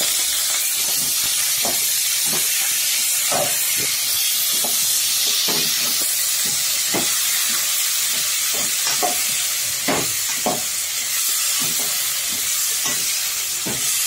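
Raw quail pieces frying in hot oil: a steady sizzling hiss with frequent short crackles and pops throughout.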